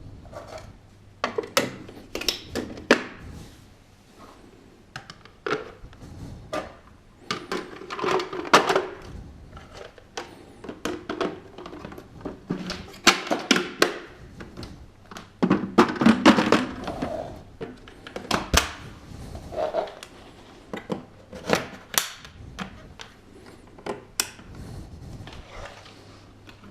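Irregular clicks, knocks and thunks of the parts of a Thomas aqua+ Allergy & Family washing vacuum cleaner being handled and fitted together.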